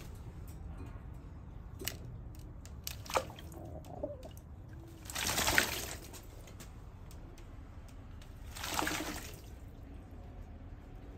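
A pigeon bathing in a shallow plastic basin, splashing the water with its wings and body in two bursts of about a second each, about five seconds in and again near nine seconds. A few light taps come before the first splash.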